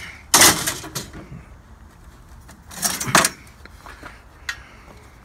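Loose scrap clattering twice as it is handled, the two clatters about two and a half seconds apart, with a light knock near the end.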